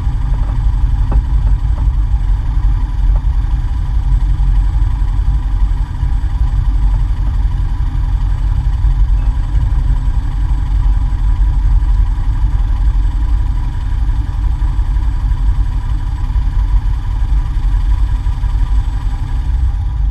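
The 1950 Cessna 170A's air-cooled six-cylinder Continental engine and propeller running steadily, a constant low drone with a thin high whine over it.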